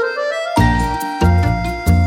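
Upbeat background music: a quick rising run of notes, then a bouncy bass line comes back in about half a second in under held melody notes.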